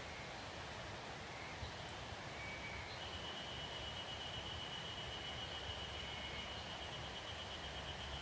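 Quiet forest ambience: a steady soft hiss with a few short faint high calls. From about three seconds in, a thin high-pitched trill starts and holds one pitch without a break.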